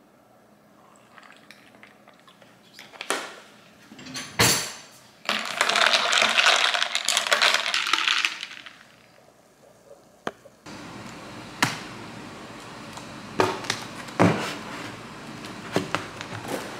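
Kitchen clatter: dishes and utensils clinking and knocking, with one loud knock about four seconds in. A rushing hiss follows for about three seconds, then more scattered clinks.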